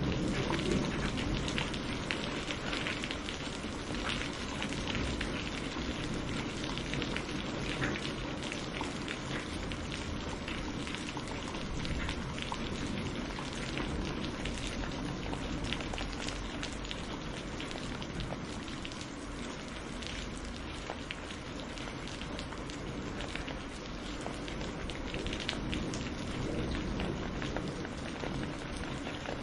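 Steady rain falling, with many individual drops ticking close by over a continuous hiss.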